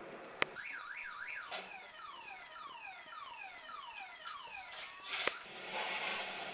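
Car alarm sounding: a click, then a fast up-and-down warble, then a run of falling electronic sweeps about three a second, cut off by a second click about five seconds in. A short rush of hiss follows near the end.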